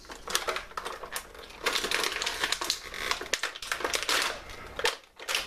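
Rigid clear plastic blister tray clicking and crackling as it is handled and flexed to work an action figure free, with a thicker run of crackling in the middle.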